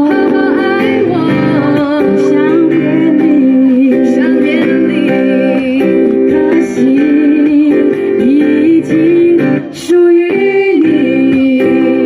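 Live female singing with acoustic guitar accompaniment, amplified through a stage PA: a sustained melodic vocal line over strummed chords, with a short break about ten seconds in.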